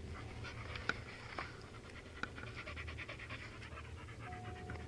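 A dog panting hard, with a few sharp clicks in among the breaths.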